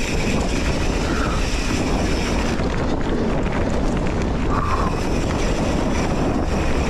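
Steady rush of wind over an action camera's microphone mixed with mountain bike tyres rolling on a dirt trail, as the bike moves along at speed.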